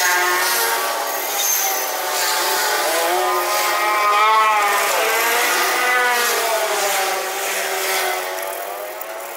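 An engine running, its pitch rising and falling as it is revved.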